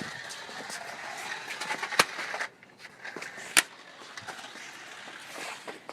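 Radio-controlled toy car rolling and rattling over rough ground, with scattered small clicks. Two sharp knocks come about a second and a half apart, and the rolling noise drops away after the first.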